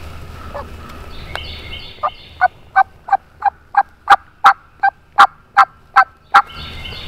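A series of about a dozen evenly spaced turkey yelps, roughly three a second, growing louder after the first few.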